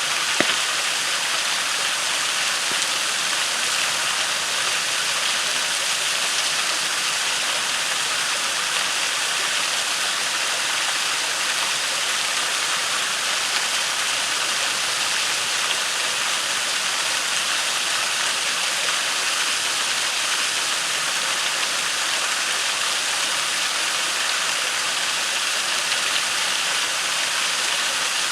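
Waterfall and creek rushing steadily, with a campfire popping once, sharply, about half a second in.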